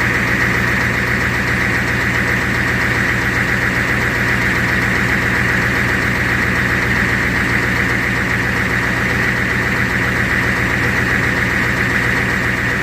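1990 Ford F350's 7.3 IDI V8 diesel idling steadily with an even diesel clatter: it is running and not dying, its crank-no-start cured by a new electric fuel pump and a fix for air intrusion.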